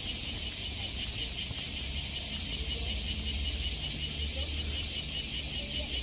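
Steady outdoor background: a high, evenly pulsing hiss over a low rumble, with no distinct event.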